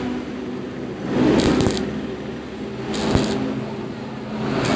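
Stick welding arc on thin square steel tube, struck in short stitches: three crackling, sputtering bursts about a second and a half apart, the arc dying down between them. Short stitches like these are the usual way to keep thin-walled tube from burning through.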